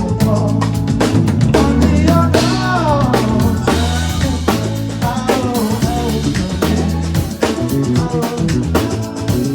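Music: a band with drum kit, bass and a melodic lead line, with a steady beat.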